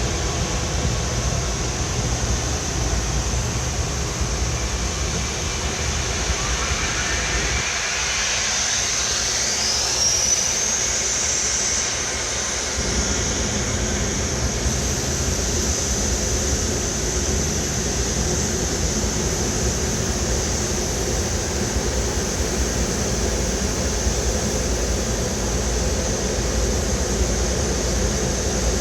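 Jet airliner and pushback tug running on the apron: a steady low rumble under a constant high whine. About six seconds in, a further whine climbs steadily in pitch over roughly eight seconds and then holds high.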